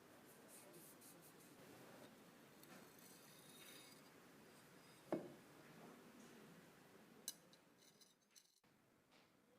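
Faint rubbing and handling sounds, with one sharp knock about five seconds in and a smaller click about two seconds later.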